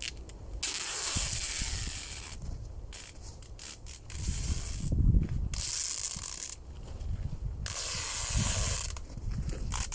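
Adhesive tape pulled off the roll in three long, harsh pulls of one to two seconds each. Between the pulls come low rustling and knocks of handling, loudest about five seconds in.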